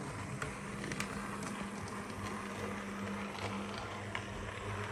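00 gauge model train running along the track: a steady motor hum with faint clicks from the wheels on the rails.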